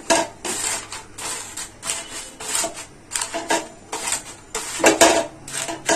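Sheets of paper rustling and crinkling in a series of short, irregular bursts as they are pressed down into an aluminium cooking pot with a wooden spatula, with light scrapes of the spatula against the pot.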